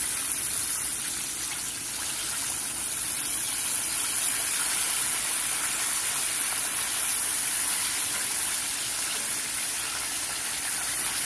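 Breaded chicken legs deep-frying in hot oil in a cast iron skillet, sizzling and bubbling steadily.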